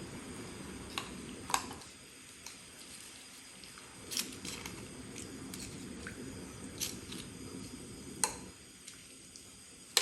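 Cooking utensil knocking and clinking against a pot, about ten separate sharp taps, as chicken pieces are moved around in the adobo braising liquid. Under it, a low steady hiss from the pot heating on high.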